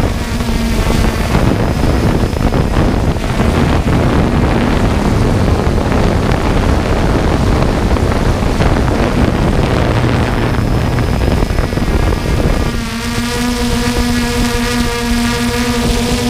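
Quadcopter drone's motors and propellers humming steadily, with heavy wind noise on its onboard microphone. About three-quarters of the way through, the wind noise drops and the pitched motor hum comes through clearly.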